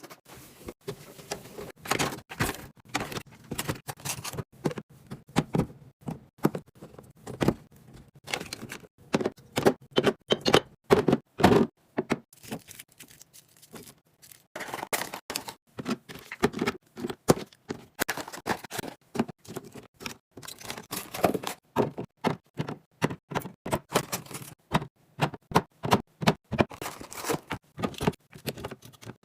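Packaged snacks and drinks being handled and set into place during a fridge and snack-drawer restock: a quick run of taps, clacks and rustles, with a short pause about halfway through.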